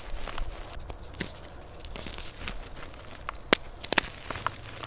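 Reformed gym chalk being crushed and crumbled by hand: soft, irregular crunching and crackling as the pressed chalk breaks apart. A sharp snap about three and a half seconds in is the loudest, followed by a quick cluster of snaps just after four seconds.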